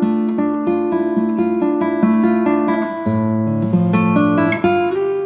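Background music on acoustic guitar: a quick, even run of picked notes over lower held notes.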